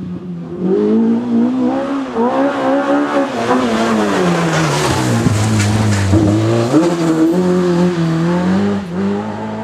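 Rally car engine running hard at high revs, heard but not yet in sight. Its pitch falls over a second or so around the middle as it slows, then rises sharply again as it accelerates, and it fades a little near the end.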